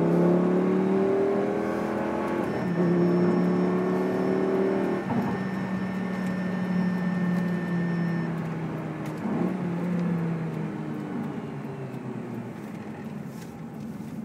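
Lamborghini Gallardo LP560-4's V10 engine heard from inside the cabin, pulling hard with its pitch climbing and dropping back at upshifts about two and a half and five seconds in. It then holds a steady note and grows quieter toward the end.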